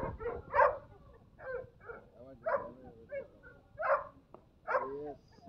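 A dog barking in a series of short calls spaced under a second apart, a few of them sliding down in pitch.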